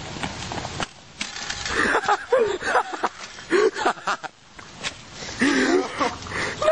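Wind rumbling on the microphone for about the first second, then people's voices calling out and laughing without clear words, with scattered knocks and handling noise.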